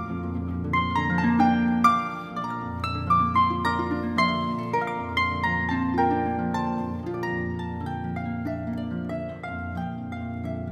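Concert harp played solo: a quick stream of plucked notes over low notes that ring on beneath them, growing somewhat softer after about six seconds.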